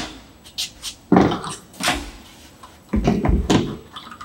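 Irregular knocks, thuds and metallic clatter as a person moves about on aluminium decking on a truck roof rack and handles gear stored at the front of the rack, with a couple of low thuds about three seconds in.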